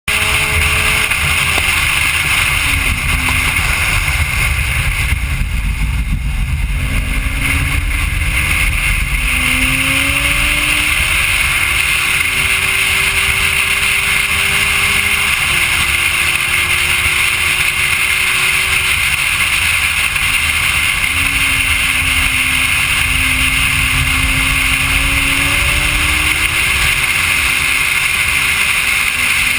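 Corvette Z06 engine under hard track driving, heard from a camera mounted on the car. The engine note climbs and falls with throttle and gear changes and drops sharply at an upshift about halfway through, over a constant rush of wind and road noise.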